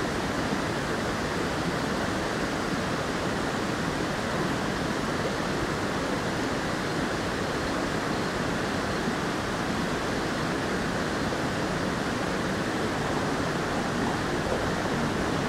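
Mountain stream rushing over rocks in a small cascade, a steady, even rush of water.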